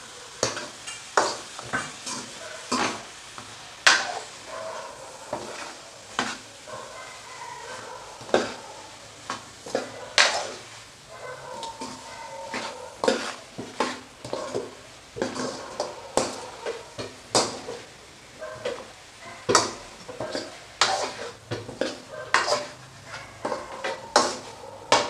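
Metal spoon stirring baby corn and fried masala in a metal kadai, scraping the pan and clinking against it irregularly, about one or two knocks a second, over a light sizzle of the frying masala.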